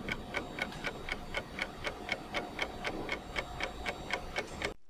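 Clock-like ticking sound effect, about four even ticks a second, over a faint hiss, cutting off suddenly just before the end.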